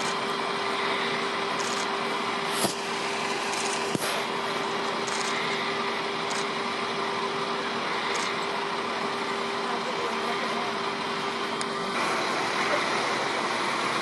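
Steady hum of an idling vehicle engine under a constant background noise, with two short knocks in the first few seconds; the hum changes about twelve seconds in.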